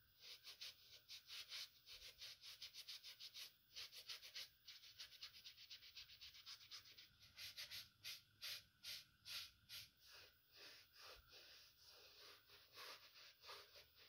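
Faint scrubbing of a small sponge against the rubber sole edge of a white leather sneaker: quick back-and-forth strokes, several a second, softening toward the end.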